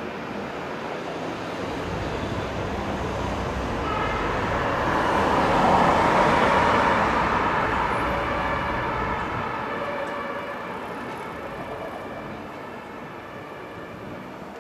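Fire brigade emergency vehicle passing with its siren sounding, over road noise. The sound swells to its loudest about six seconds in, then slowly fades.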